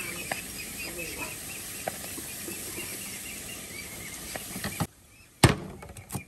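Small birds chirping over steady background noise. Near the end the sound drops out, then a cleaver chops hard once on a wooden chopping board, followed by a lighter knock.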